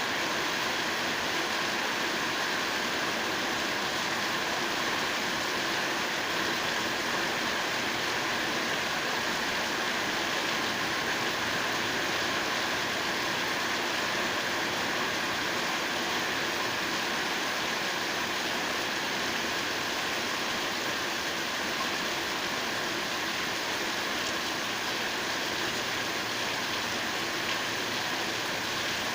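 Steady rainfall: an even, unbroken hiss of rain with no single drops standing out.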